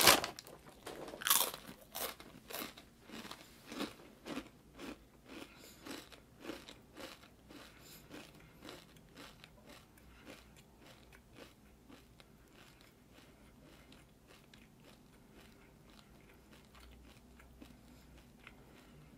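Biting into and chewing Triscuit woven-wheat crackers: a loud crunch at the first bite, then chewing crunches about twice a second that grow steadily fainter and die away in the second half.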